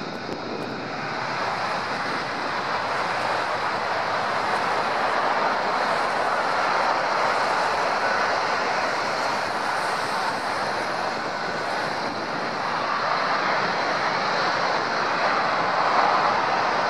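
Lockheed Martin F-35A Lightning II jets taking off in afterburner: the single Pratt & Whitney F135 engine's continuous jet roar, growing louder over the first few seconds and then holding loud.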